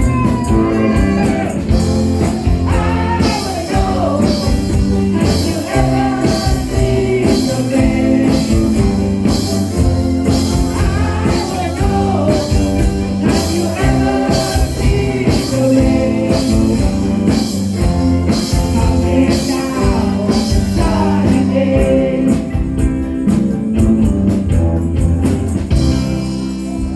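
A band playing a rock song, with a lead singer over a steady beat of percussion strokes at about two a second; the music eases off just before the end.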